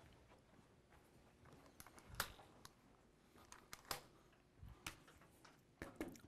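Near silence broken by faint, scattered clicks and knocks of an air rifle being handled and set down on a table, the loudest about two seconds in.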